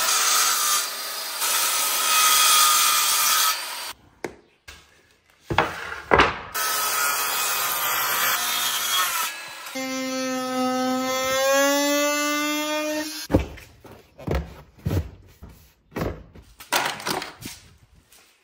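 Corded circular saw cutting through pine boards, two long cuts, then a power drill running steadily for about three seconds with its pitch bending slightly as it works. A string of sharp knocks and clatter from boards being handled follows near the end.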